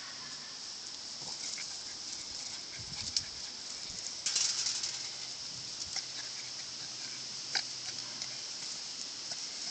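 Two Boston Terriers play-wrestling on grass: scuffling and rustling with scattered short clicks and a louder flurry about four seconds in, over a steady high hiss.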